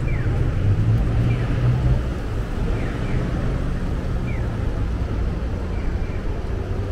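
Steady low rumble of city street traffic, with short, falling high chirps repeating about once a second.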